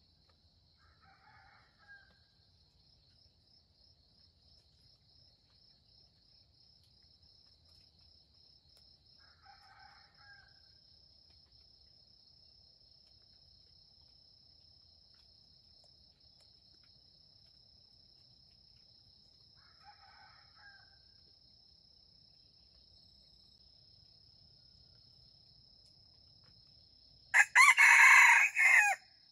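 Red junglefowl rooster crowing once near the end, a loud, short crow. Steady high insect chirring runs underneath, with three soft, brief calls spaced about nine seconds apart before it.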